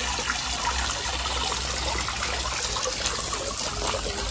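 Small tiered stone fountain, water trickling and splashing steadily into a rock-edged pond.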